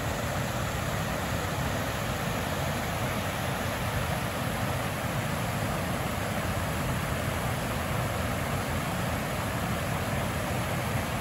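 River water, running high after rain, pouring over a low stepped concrete weir: a steady, even rushing.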